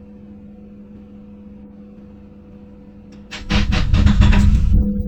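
Excavator engine running steadily with a low hum. A little over three seconds in, a loud, rough burst of noise from the machine at work cuts in and lasts about a second and a half.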